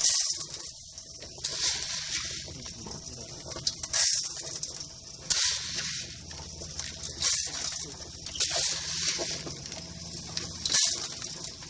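Dry popcorn kernels poured into the popcorn maker's hot pan in a series of scoops, each a brief rattling patter, over a faint low steady hum.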